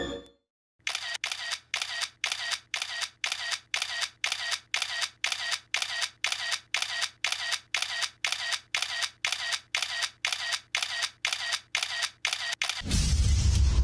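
Camera shutter clicking over and over like an SLR firing, evenly at about three clicks a second. Near the end it stops and loud music with a deep low boom comes in.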